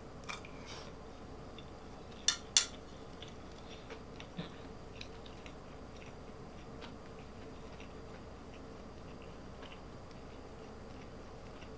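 A few sharp clinks of cutlery against a dish while eating, two of them close together about two seconds in, with smaller ticks between, over a faint steady hum.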